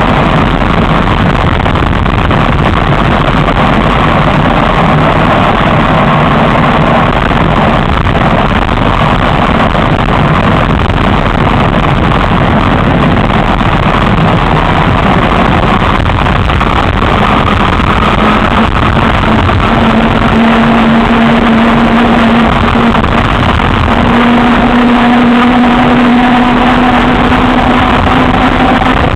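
Alternator-motor e-bike on the move: steady rush of wind and road noise, with the motor's whine showing as a steady tone through the second half.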